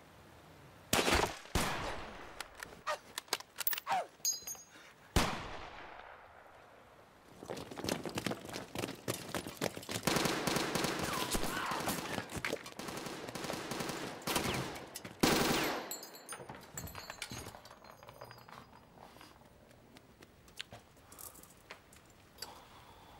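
Battle gunfire: scattered rifle shots and rapid bursts of machine-gun fire, with a few louder single bangs about a second in, around five seconds and around fifteen seconds. The firing is densest and fastest from about ten to fifteen seconds in, then thins out to occasional shots.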